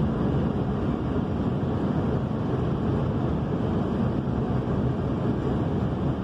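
Steady road and engine noise inside the cabin of a moving car, an even low rumble with no breaks.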